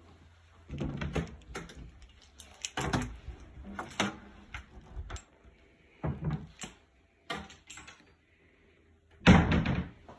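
A series of knocks and bumps in a small room, coming in several short clusters with quiet between them; the loudest comes near the end.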